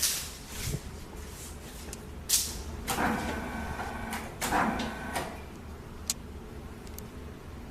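Hydraulic butt fusion welding machine, its carriage moving the trimmed HDPE pipe ends together and apart as they are checked for welding. This is heard as two short mechanical bursts with a steady whine, about a second apart, among clicks and knocks over a steady low hum.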